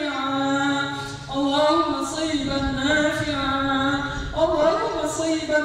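A man chanting a du'a for rain in a slow, melodic voice, holding long notes that rise and fall.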